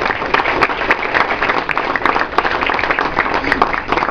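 A roomful of people applauding, many hands clapping densely; the applause dies away at the very end.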